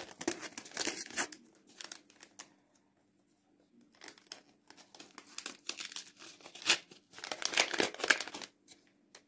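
A paper seed packet being torn open and crinkled between the fingers: rustling and crackling in the first two seconds, a short pause, then more crinkling from about four seconds in, loudest near the end.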